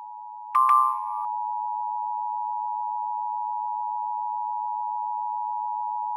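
Emergency Alert System attention signal: the two-tone alert of about 853 Hz and 960 Hz sounded together as one steady tone, broadcast over FM radio. About half a second in, a brief louder, higher beep sounds over it for under a second.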